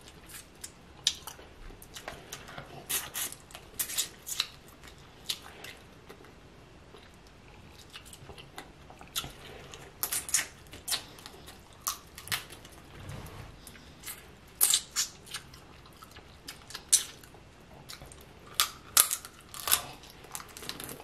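Close-miked eating of snow crab legs: irregular sharp cracks and clicks of shell being broken, with wet chewing and smacking. The loudest clusters come about ten seconds in and again near the end.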